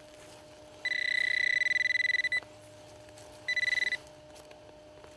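Garrett Pro-Pointer pinpointer giving its high, rapidly pulsing alert tone twice: a long one of about a second and a half, then a short one, as it is worked through a dug plug of soil. The tone signals a metal target right at the probe tip, here a lead musket ball.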